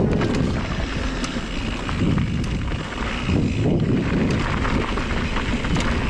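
Wind buffeting the microphone of a downhill mountain bike rider at speed, with tyres on the dirt trail and scattered sharp clicks and rattles from the bike.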